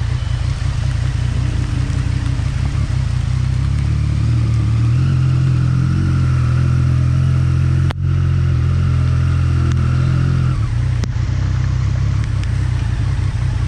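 Triumph Street Triple 675's three-cylinder engine with an aftermarket Arrow exhaust, running at low revs as the bike rolls slowly on a wet road. The note shifts about five seconds in and eases off a little after ten seconds. A steady hiss of rain and wet tyres runs underneath.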